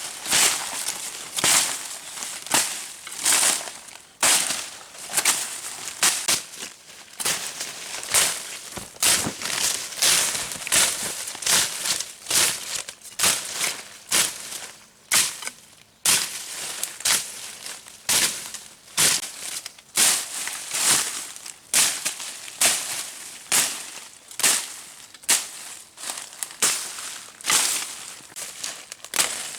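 Repeated sharp crunching, rustling strokes, about one to two a second, with short pauses between runs.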